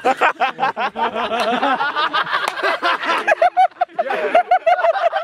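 Men laughing hard, breaking into a quick run of short 'ha-ha-ha' bursts, about five a second, in the second half.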